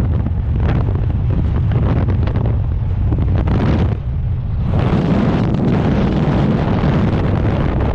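Loud, steady low rumble of wind buffeting the microphone, with a brief lull about four seconds in.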